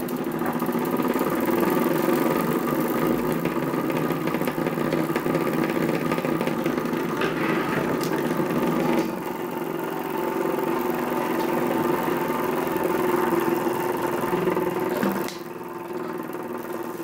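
Miniature oscillating steam engine (6 mm bore, 8 mm stroke) running fast on steam from its small lamp-fired boiler: a rapid, steady chuffing buzz from the wobbling cylinder's exhaust. It gets louder at the start and drops in level near the end.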